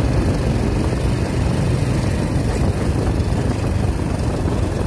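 Motorcycle riding at a steady speed: its engine running under a steady rush of wind noise.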